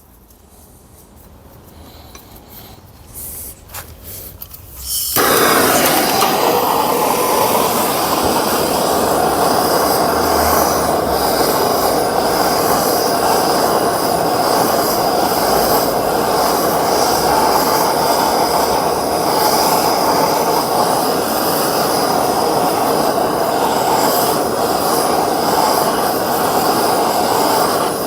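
A few light clicks, then about five seconds in a gas torch flame starts and runs with a loud, steady hiss. It is heating the stuck fifth-gear hub of a Toyota robotized gearbox so that it can be pulled off.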